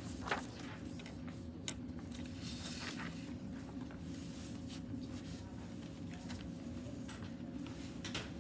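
Steady classroom room hum with a faint constant tone, and a few soft clicks and rustles from a cased tablet being handled, two of them sharper in the first two seconds.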